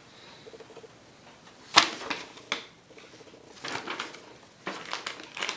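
Handling noise from a paper instruction manual being folded and moved about: scattered rustles and sharp clicks, the loudest about two seconds in and a cluster more near the end.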